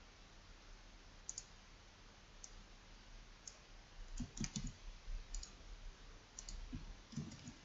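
Computer mouse clicking: scattered single and double clicks, with a few soft low thuds in between.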